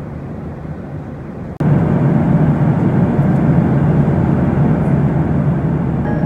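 Steady cabin noise of a Boeing 737-800 in cruise: the even rush and low rumble of the CFM56 engines and airflow, heard from inside the cabin. It jumps suddenly louder about a second and a half in and then holds steady.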